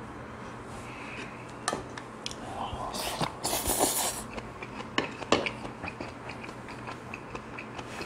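Close-up eating sounds: a loud slurp from a small bowl of soup about three to four seconds in, then chewing with many small wet clicks. A few sharp clicks stand out, one early on and a couple about five seconds in.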